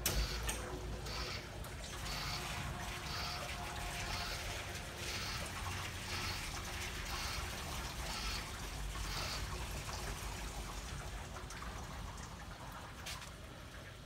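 Hobart LXiH undercounter commercial dishwasher running its cycle: water spraying inside the closed cabinet, with a swishing that swells and fades about twice a second, growing weaker over the last few seconds.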